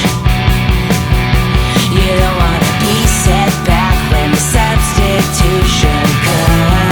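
Rock music with distorted guitars and a steady, driving drum beat of about four to five hits a second.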